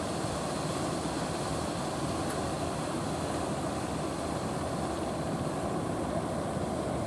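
Steady, even drone of a wooden fishing boat's engine as the boat moves past, blended with the wash of water and surf.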